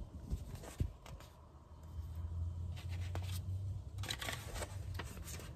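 Paper pages of a paperback picture book being handled and turned, with a few short rustles a few seconds in, over a faint low hum.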